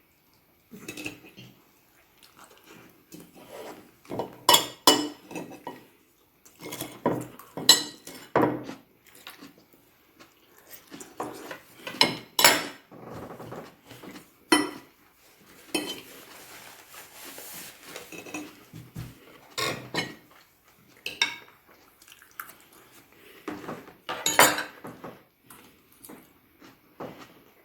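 Cutlery clinking and scraping against plates and dishes during a meal: irregular short clinks, some louder than others.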